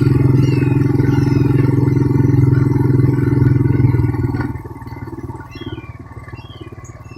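Suzuki's engine running steadily with a low, even drone, dropping much quieter about four and a half seconds in.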